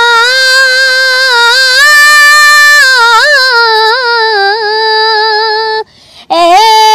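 A boy singing an Urdu naat unaccompanied, holding one long, high, wavering note that drifts up and then lower. It breaks off near the end and he starts a new phrase.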